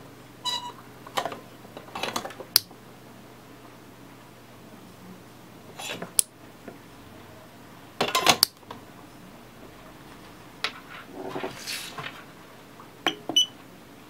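Light clicks and small metallic clatter of handling, in several short bursts. There are brief electronic beeps about half a second in and again near the end.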